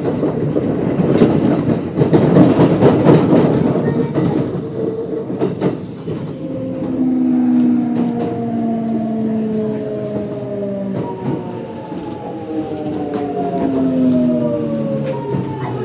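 Kintetsu 1259 series train's Hitachi GTO-VVVF inverter and traction motors under way: loud wheel-on-rail rolling noise, then from about six seconds in several whining tones that fall steadily in pitch as the train slows. This is the GTO inverter's sound under regenerative braking on the approach to a station.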